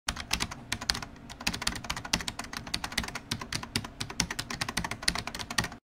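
Computer keyboard typing sound effect: a rapid, uneven run of key clicks that cuts off abruptly just before the end.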